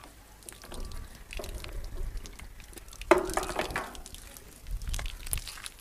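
Clicks and rubbing from a pressure washer hose's threaded coupling being screwed by hand onto the spray gun, with one louder handling noise lasting under a second about three seconds in.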